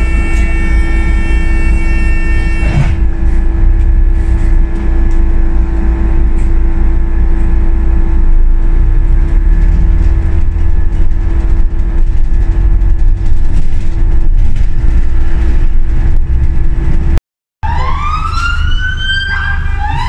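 Steady low traffic and engine rumble with a constant hum, heard from a moving vehicle in city traffic; a set of high steady tones cuts off about three seconds in. Near the end, after a sudden cut, an emergency vehicle siren wails in repeated rising sweeps.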